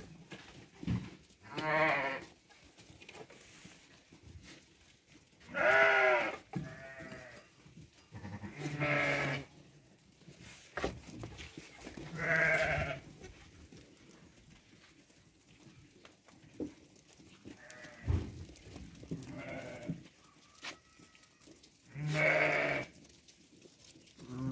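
Sheep bleating, about six separate calls a few seconds apart, some louder and nearer than others.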